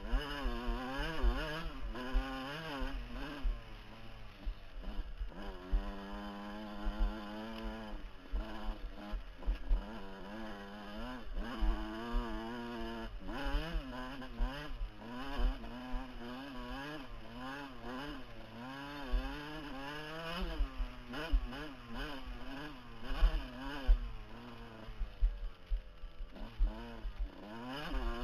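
Dirt bike engine heard from the rider's helmet camera, its revs rising and falling every second or so as the throttle is worked over rough trail. Frequent low thuds and buffeting sound underneath.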